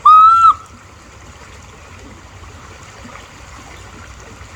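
A person's short, loud, high-pitched squeal right at the start, held steady for about half a second, then the steady rush of a creek running over a rapid.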